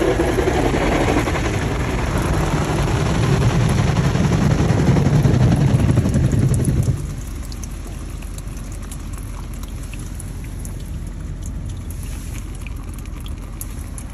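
Water leaking through a car's roof, pouring and dripping onto the centre console inside the cabin. A louder rushing with a low rumble drops away about seven seconds in, leaving lighter patter and many small drips.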